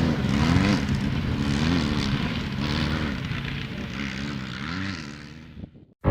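Off-road race vehicle's engine revving up and down repeatedly, fading out to silence near the end.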